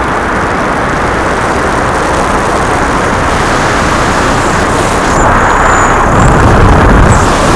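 Paramotor in flight: the engine running steadily under heavy wind rush on the helmet microphone, growing louder with more low buffeting about five seconds in.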